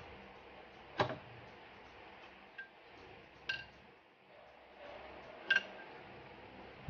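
A few sharp metallic clinks and taps, about four, the loudest about a second in, from metal parts and tools knocking together at a car's front brake and suspension.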